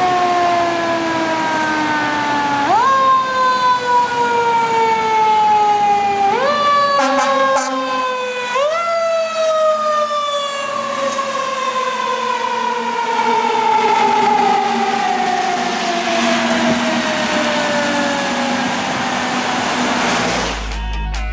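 Fire engine's mechanical siren in a long falling wail, quickly sped back up three times in the first nine seconds, then left to wind down slowly, over the hiss of tyres on a wet road.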